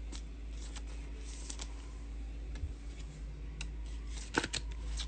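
Trading cards being handled: light rustles and small clicks as cards slide and are set down, with a louder cluster of snaps about four and a half seconds in, over a steady low hum.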